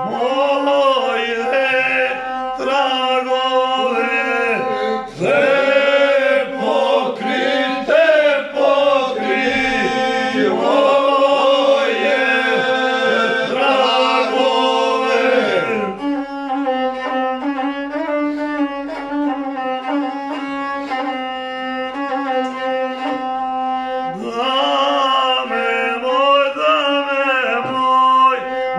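A group of men singing a traditional folk song (izvorno singing) unaccompanied, in several voices. They hold long notes with sliding, wavering ornaments in the melody, and the singing becomes steadier and more level for a while past the halfway point.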